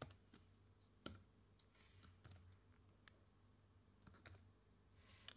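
Faint, scattered clicks of a computer mouse and keyboard over near silence, the loudest at the start and about a second in.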